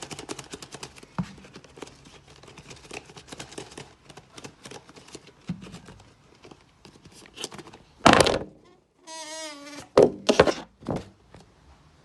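Packaging being handled during an unboxing: dense crinkling and clicking for the first few seconds, then a loud thunk about eight seconds in. A short wavering squeal follows, then a few more knocks.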